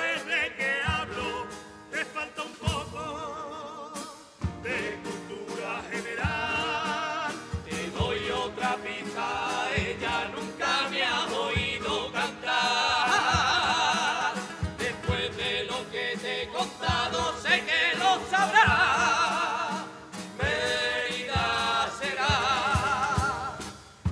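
A carnival comparsa choir singing in several voices with wavy vibrato, accompanied by guitar and regular bass-drum beats.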